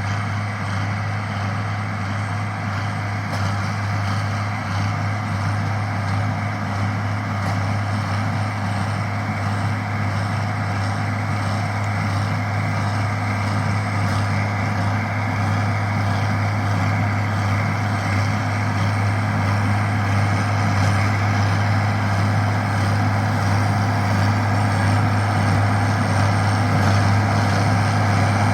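International Harvester 1026 Hydro tractor's six-cylinder diesel engine running steadily under load while it pulls a New Holland hay baler, a constant low drone that grows slightly louder.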